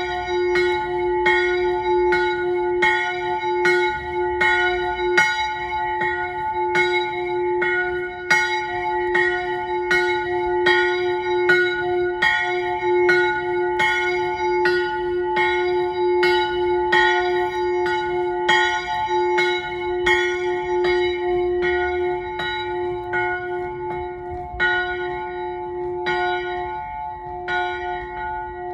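A single small chapel bell swinging in its roof turret, struck steadily by its clapper at about three strokes every two seconds, each stroke ringing on into the next.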